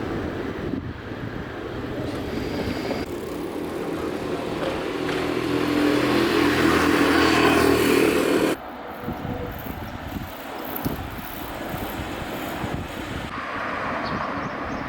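A vehicle's engine hum swelling louder over several seconds, then cut off suddenly about eight and a half seconds in, leaving quieter outdoor background noise.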